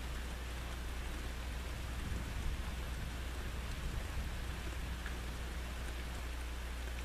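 Steady rain falling during a thunderstorm, with a low rumble of thunder swelling about two seconds in and fading by about five seconds.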